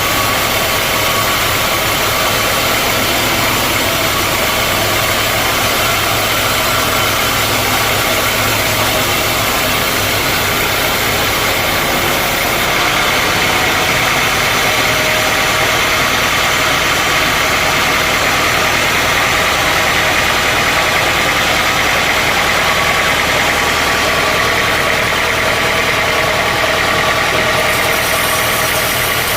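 Sawmill machinery running steadily: a loud, continuous mechanical drone with a steady high tone in it. The topmost hiss drops back a little about 13 seconds in and returns near the end.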